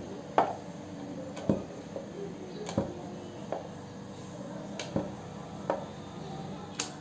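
Wooden rolling pin knocking against a round wooden rolling board while puris are rolled out by hand, a sharp wooden knock about every second.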